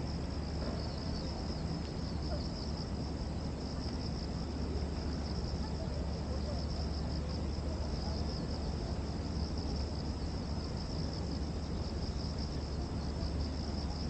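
Cicadas singing in a steady chorus: a continuous high buzz with a fine flicker, over a low steady rumble.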